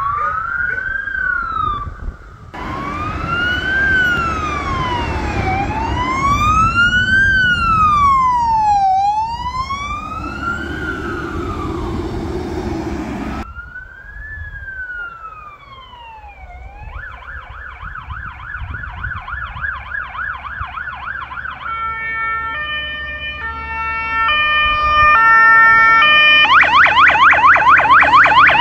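Emergency vehicle sirens from more than one vehicle. First a wail sweeps slowly up and down, about one rise and fall every three seconds. Then the approaching fire engine's siren switches to a fast yelp, then to a stepped pattern of alternating tones, and ends in a loud fast yelp.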